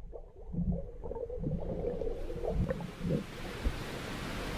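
Muffled sloshing and dull knocks of water against a camera held underwater, with a hiss that grows from about halfway through.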